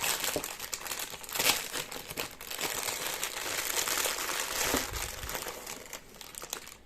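Bubble wrap being handled and unwrapped by hand, crinkling and rustling with many small crackles, growing quieter near the end.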